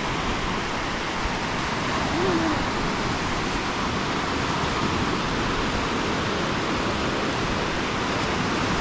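Steady noise of sea surf washing on the beach.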